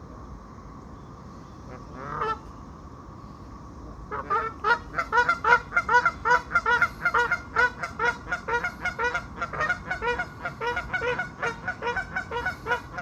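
Geese honking: a single honk about two seconds in, then from about four seconds a loud, rapid run of repeated honks, several a second, going on to the end.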